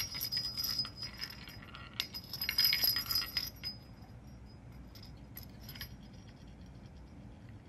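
Balls rolling and jingling around the tracks of a three-tier bamboo ball-track cat toy as a cat bats them, in two bursts over the first four seconds, then a few light clicks near six seconds.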